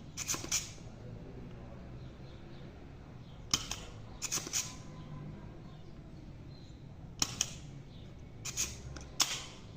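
Short clusters of sharp clicks and scrapes, five or six times over about ten seconds, over a faint steady low hum.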